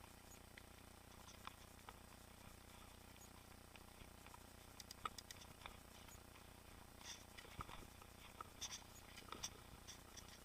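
Faint, irregular clicks and ticks from a mountain bike rolling along the trail, over a low steady hiss. The clicks come in loose clusters about halfway through and again near the end.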